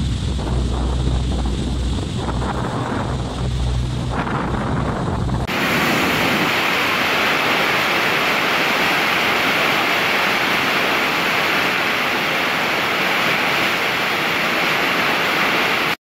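Wind buffeting the microphone over rushing water and a low hum, heard from the water below a waterfall. About five and a half seconds in it cuts abruptly to the steady, loud rush of a big waterfall close by.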